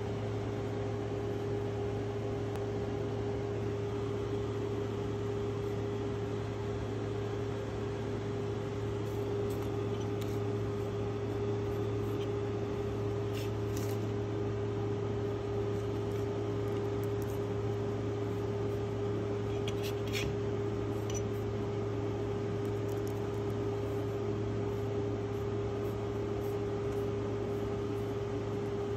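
Steady machine hum, a low drone with a fixed higher tone over it, with a few faint clicks scattered through it.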